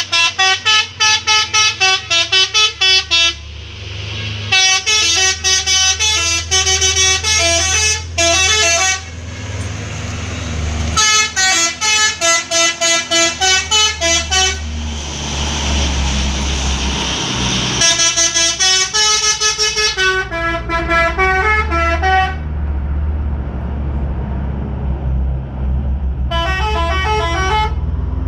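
Truck 'telolet' multi-tone musical horns playing fast runs of stepped notes, about four notes a second, in five bursts. Between the bursts a heavy engine rumbles steadily underneath.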